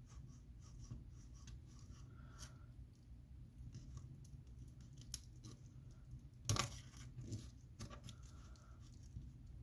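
Faint scraping and small clicks of a screwdriver prying an iPhone 7 battery up off its strong adhesive tape, with one sharper click about two-thirds of the way through.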